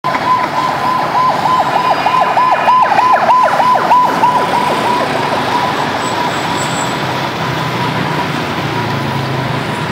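A siren-like warbling tone, dipping and recovering about four times a second, then settling into a steady held tone about five seconds in that slowly fades.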